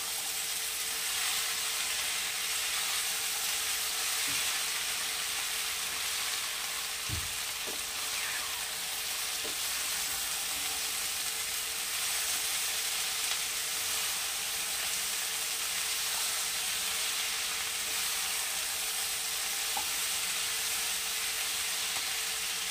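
Mixed vegetables (cauliflower, potato, beans, peas, tomato, capsicum) sizzling steadily in hot oil in a kadai while being stirred with a wooden spatula, with a few soft knocks of the spatula against the pan.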